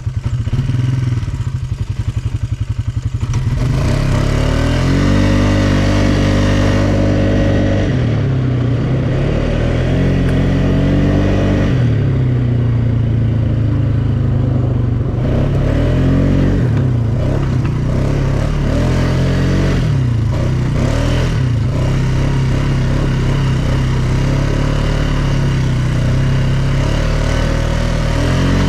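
ATV engine running as it is ridden, rising in pitch and dropping back several times as the throttle is opened and eased off.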